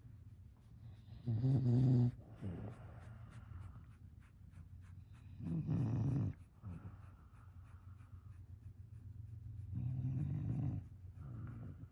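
English bulldog snoring in its sleep: three loud, low, rattling snores about four seconds apart, with softer breathing between them.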